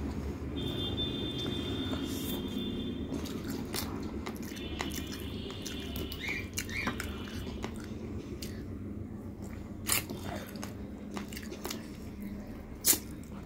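Close-up eating sounds: chewing, and fingers picking meat off pieces of chicken in curry, with scattered small mouth clicks and one sharp click near the end, over a steady low hum.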